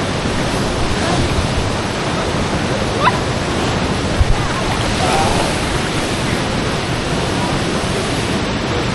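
Waterfall pouring into a plunge pool: a steady, loud rush of falling water.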